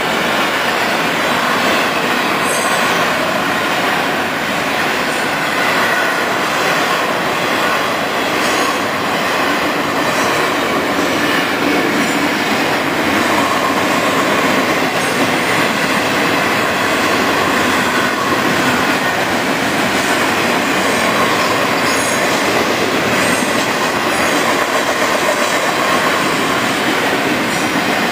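Intermodal freight train cars rolling steadily past at a grade crossing: wheels on rail, with a thin wheel squeal.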